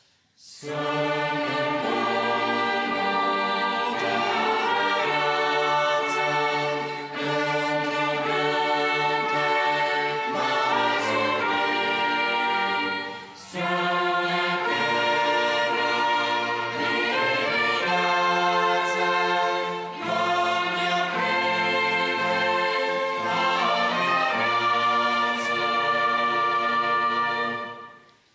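Orchestra of violins, cellos and piano playing a slow hymn, with a choir singing along. The music briefly thins about halfway through.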